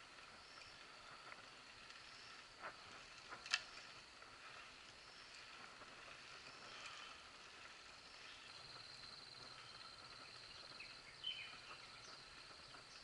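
Faint outdoor ambience of insects buzzing steadily, with a thin high buzz coming in about eight and a half seconds in, and a few sharp clicks, the loudest about three and a half seconds in.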